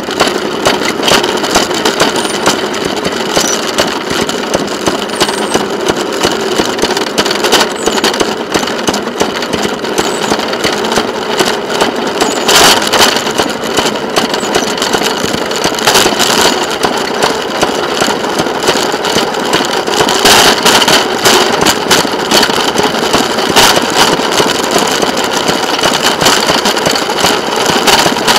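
Engine of the rail speeder SPM 4735 running steadily as the car rolls slowly along the track, with a few sharp clacks along the way.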